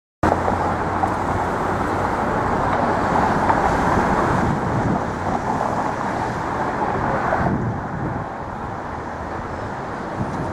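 City street traffic: a steady wash of passing vehicles with a low engine hum, starting abruptly and easing off a little about three quarters of the way through.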